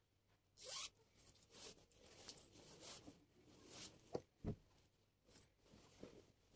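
Quiet household cleaning and handling sounds: a brief swish near the start, soft rustling, and two dull knocks about four seconds in.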